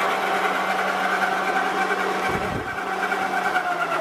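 Meuser M1 L centre lathe running under power with a steady mechanical whine, with a brief low bump about halfway through. Near the end the pitch begins to fall as the machine starts to slow.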